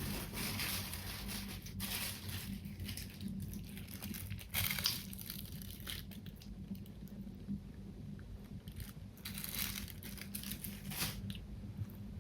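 Close-miked eating sounds: a person chewing and biting food, with scattered short wet, crunchy mouth noises between quieter stretches.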